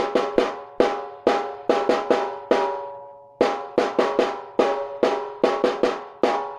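A drum struck by hand or stick, about twenty hits in a loose, uneven rhythm with a short pause a little before halfway; each hit rings on with a clear pitched tone that dies away.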